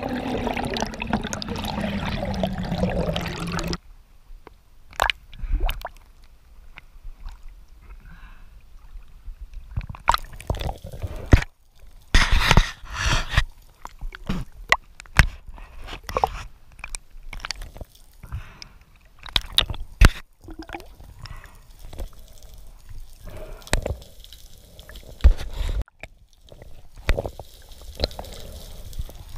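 Water sloshing and gurgling around a freediver's action camera as he moves between the surface and the reef, with many scattered sharp clicks and knocks. A louder rush, falling in pitch, fills the first few seconds and then cuts off suddenly.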